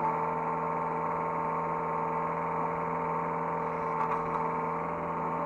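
Hydraulic excavator's diesel engine and hydraulic pump running at a steady speed, heard from inside the operator's cab: an even hum with a steady whine.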